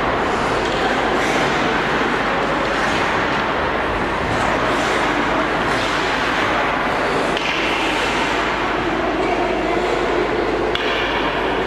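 Hockey skate blades scraping and carving the ice in repeated strides, over a steady loud rink noise, with muffled voices.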